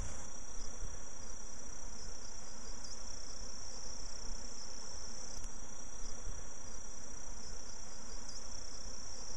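Steady insect noise: an unbroken high-pitched chirring over an even, lower buzzing hiss, with no break or change.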